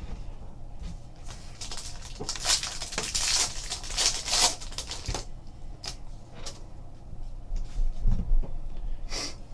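Foil trading-card pack wrapper being torn open and crinkled. After that come lighter rustles and clicks of cards being handled and slid against each other.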